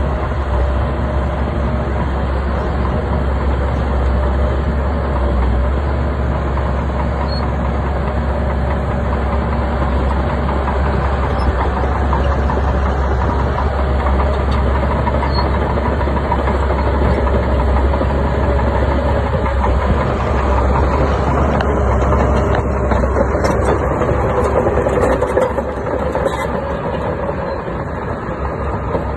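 Heavy diesel engine of a Shantui bulldozer running steadily under load while it pushes rock and dirt, easing off slightly near the end.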